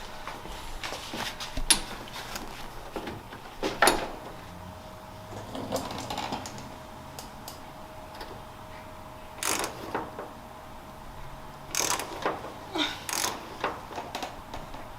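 Hand ratchet clicking in short bursts, with scattered knocks of metal, as a seatbelt retractor mounting bolt is worked in a truck cab.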